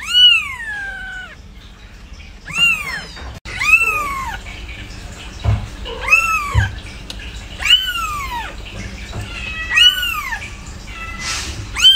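Kitten mewing repeatedly, about seven high-pitched meows a second or two apart, each rising and then falling in pitch.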